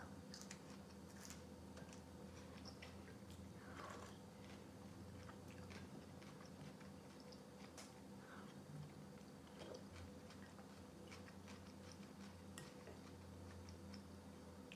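Faint close-up eating sounds: bites and chewing of raw green onion alternating with spoonfuls of cold beet soup, heard as scattered small clicks and crunches over a low steady hum.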